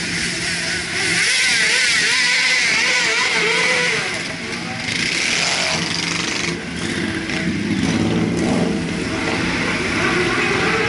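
Motorcycles riding past one after another at parade pace, their engine notes rising and falling as each one goes by.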